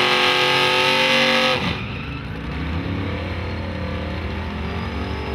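Drag-race engine revving high and held, its pitch creeping up, cut off abruptly about a second and a half in. Then a lower, rougher engine rumble from a Chevrolet pickup doing a smoky burnout.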